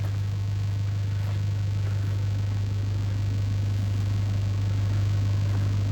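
A steady, loud low hum with an even hiss over it, unchanging throughout, like a machine or engine running at a constant speed.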